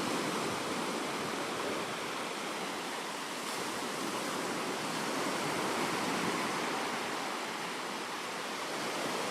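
Steady rushing wash of ocean surf, a continuous noise without distinct calls or knocks.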